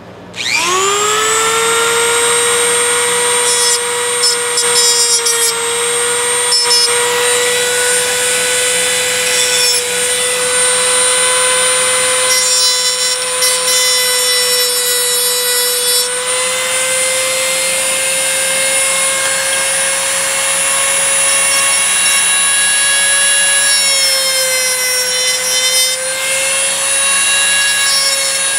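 Handheld rotary tool spins up with a rising whine just after the start, then runs at a steady high whine while its cut-off wheel grinds at the steel pivot rivet of old pliers, the rasp of the grinding coming and going.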